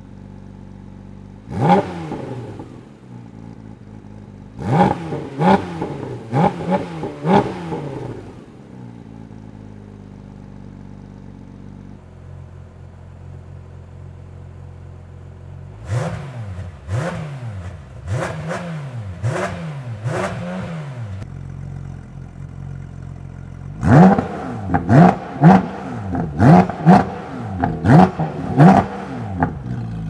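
Porsche 718 GT4 RS 4.0-litre flat-six revved in quick blips from idle while stationary, first through the stock exhaust with its valves open, then through aftermarket street headers and muffler. The revs rise and fall sharply in groups of several blips, with a steady idle between them, and the last group is the loudest and quickest.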